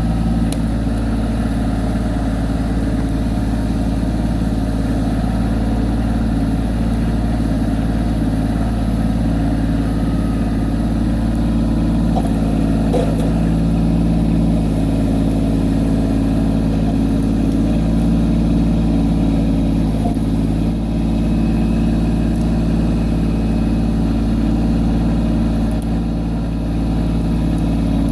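Kubota B2601 compact tractor's three-cylinder diesel engine running steadily, with a few faint knocks.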